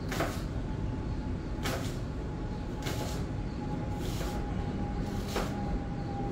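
Kitchen knife cutting through an apple onto a cutting board, one crisp cut about every second and a quarter, over a steady low hum.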